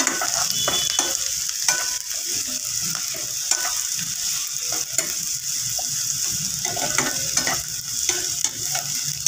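Chopped onions and green chillies sizzling in hot oil in a frying pan, stirred with a metal spoon that scrapes and clicks against the pan now and then.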